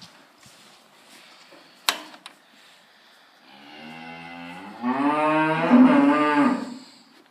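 A cow mooing once, a long low call that starts about three and a half seconds in, rises in pitch, then falls away. A single sharp click comes just before the two-second mark.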